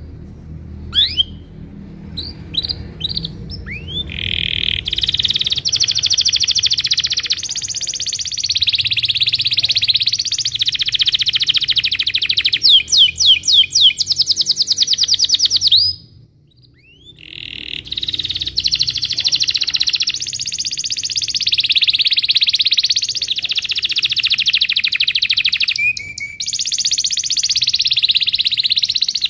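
Domestic canary singing: a few scattered chirps and upward whistles open into long rolling trills, with a loud run of fast rising sweeps about halfway through, a short pause, and then more continuous rolling song.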